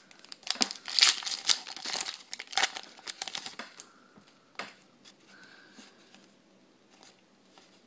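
Foil trading-card booster pack wrapper crinkling as it is torn open, a busy run of crackles for the first three and a half seconds or so. After that come a few soft clicks and slides of the cards being handled.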